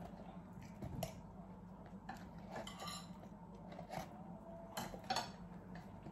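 Chopsticks and a fork clicking and clinking against plates and takeaway containers while eating: a scatter of light taps, loudest about a second in and around five seconds in, over a low steady hum.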